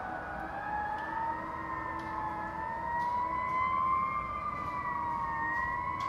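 Fire truck siren sounding a long wail, held high with its pitch drifting slowly up and down.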